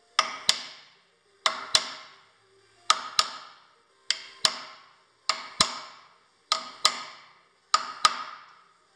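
Steel hammer striking the old bearing's outer race, used as a drift, to drive a new spindle-bearing outer race into the headstock bore of an LT-10M lathe. Seven quick double blows, about one pair every 1.2 seconds, each ringing briefly.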